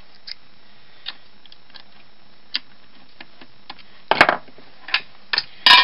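Small metal tools being handled on a workbench: scattered light clicks, with louder clattering about four seconds in and again near the end.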